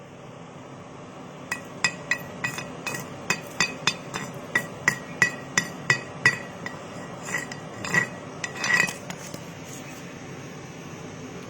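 Light hammer taps on metal, about three a second, each ringing briefly, with a few longer, louder strikes near the end. A steady hum runs underneath.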